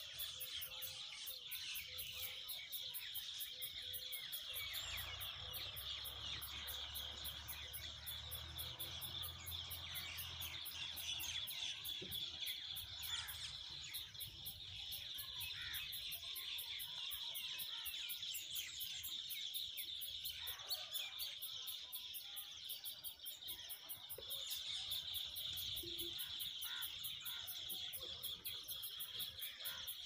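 Steady high-pitched chirring of insects, such as crickets or cicadas, running on without a break.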